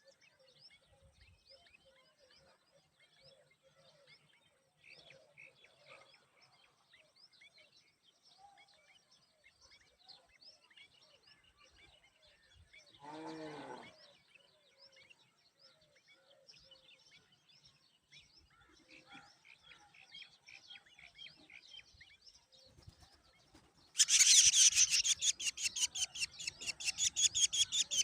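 Faint, scattered bird chirps, with one drawn-out lower animal call about halfway through. Near the end, loud rapid raspy begging calls from drongo nestlings, about ten a second, set in.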